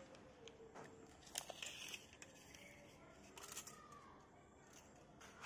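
Near silence: faint room tone with a few soft clicks and rustles.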